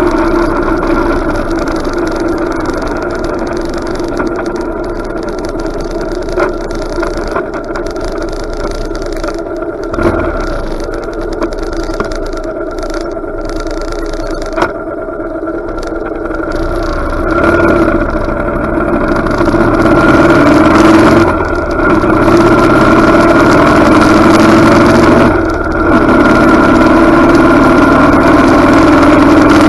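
Motorcycle engine running under way, heard through the bike-mounted action camera's microphone. It grows louder about two-thirds of the way in, with two short dips later on.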